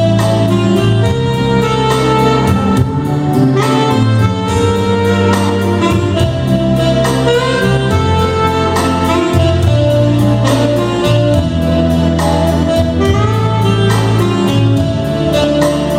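Instrumental break of a pop song's accompaniment: a melodic lead line with bending notes over held bass notes and a steady beat, with no singing.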